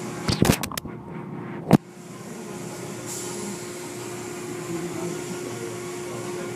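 Automatic tunnel car wash running: water pouring over a car under a steady machine hum. A cluster of sharp clicks comes about half a second in, and a single loud knock just under two seconds in.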